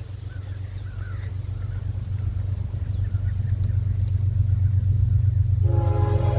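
Diesel locomotive approaching, its low rumble growing steadily louder; near the end its air horn starts sounding, several tones together as one chord.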